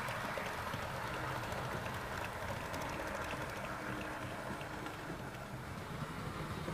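HO-scale model train wagons rolling past on the track, metal wheels clicking over the rail joints. The rolling noise thins out about four seconds in as the last wagons go by.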